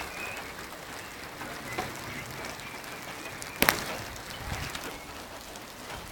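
Steady hiss of rain falling in a storm, with one sharp knock a little over halfway through.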